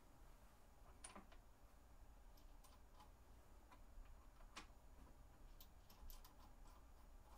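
Near silence broken by a few faint, sharp clicks and taps of a steel machinist square and its clamp being set on a milling machine's T-slot table. The clicks come one about a second in, one past the middle, and a quick cluster near the end.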